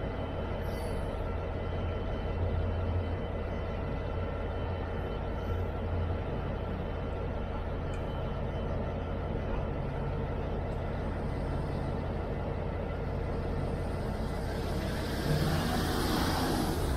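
GB Railfreight Class 66 diesel locomotive's two-stroke V12 engine running steadily with a low hum. About two seconds before the end, air hisses loudly from the train's brakes.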